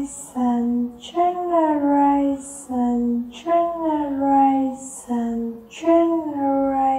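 A single high voice chanting the word "generation" in a drawn-out, sing-song way, each time with a falling melody. It comes about once every two and a half seconds, about three times.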